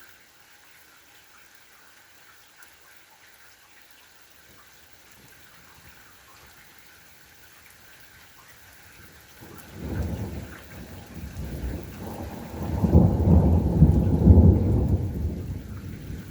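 Steady light rain hiss, then about ten seconds in a thunderclap from a cloud-to-ground lightning strike breaks and rolls as a deep rumble, loudest a few seconds later and dying down near the end.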